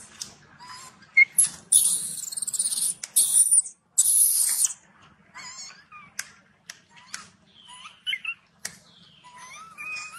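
Baby macaque giving short squeaky, chirping cries that slide up and down in pitch, among scattered clicks. A loud harsh hissing burst comes three times between about two and five seconds in.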